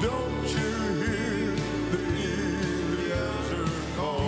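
Live gospel song: keyboards and piano with several singers holding long notes with vibrato.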